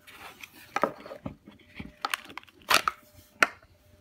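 A carbon-steel bushcraft knife drawn out of its Kydex sheath by hand: a series of sharp plastic clicks and scrapes, the loudest about three and a half seconds in.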